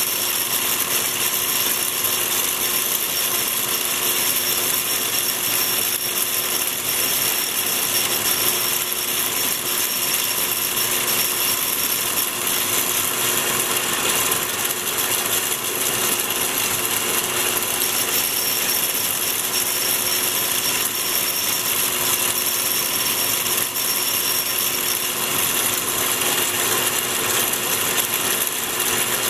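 Atlas 618 metal lathe running steadily, an even mechanical whir with a constant whine, while the tool bit scores a light witness mark around a small spinning workpiece.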